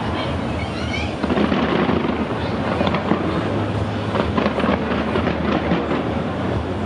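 Fireworks display going off continuously: a dense patter of crackling stars over a steady low rumble of aerial shells bursting, the crackle growing thicker about two seconds in.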